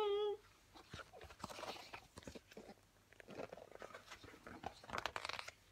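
Faint rustling and small irregular clicks of a picture book being handled and held up.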